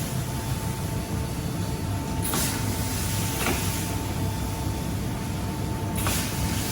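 Steady drone of oatcake factory machinery with a constant humming tone. A hiss swells from about two seconds in and drops away near the end, with a few light clicks along the way.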